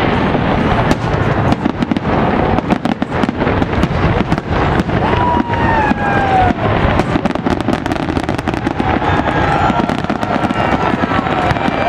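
Fireworks bursting in a rapid, almost continuous volley of bangs with dense crackling between them.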